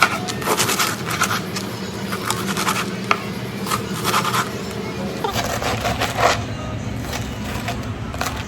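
Knife sawing through toasted garlic French bread: repeated scraping, crunchy strokes through the crust at an uneven pace.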